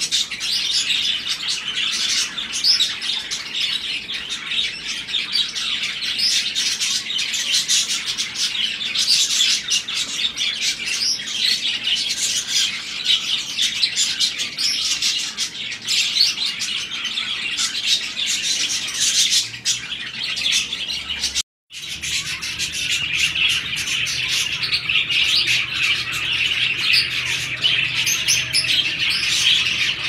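A flock of caged budgerigars chirping and chattering continuously in a dense, high twitter, with a brief break about two-thirds of the way through.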